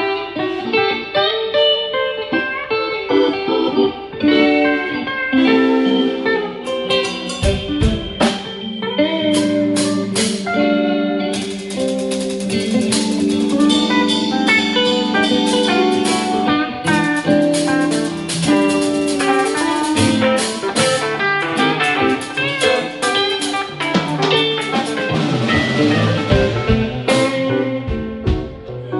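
A live rock band playing a bluesy song, with electric guitars over a drum kit.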